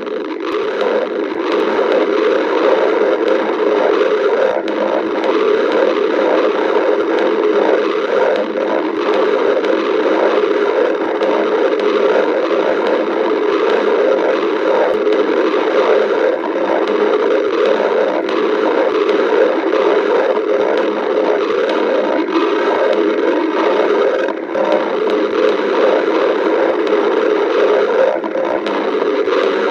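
A woman's stomach growling and gurgling continuously, a steady dense rumble with a brief lull about twenty-four seconds in.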